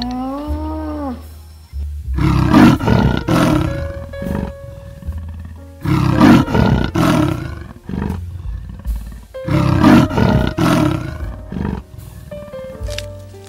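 Leopard roaring in three rasping bouts about three and a half seconds apart, each of two or three harsh pulses, over soft background music. A lowing moo fades out within the first second.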